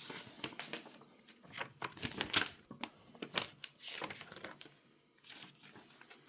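Paper and packaging being handled: irregular rustling and crinkling, as an instruction leaflet is unfolded and leafed through.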